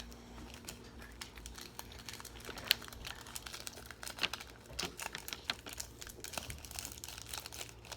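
Ramen seasoning packet crinkling in the hands as it is squeezed and shaken empty over the bowl, with one sharper click a little under three seconds in.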